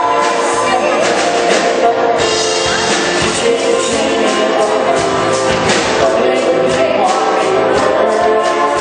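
A band playing a pop song with singing, electric guitar and drum kit over a steady beat.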